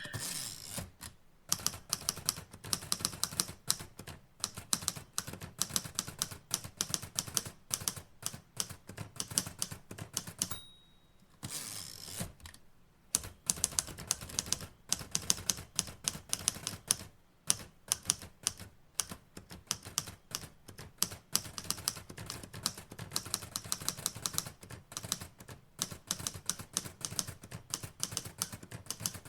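Typewriter keys clacking in quick, irregular runs of strokes. About ten seconds in comes a short, high ding, then a pause of about a second and a half before the typing resumes.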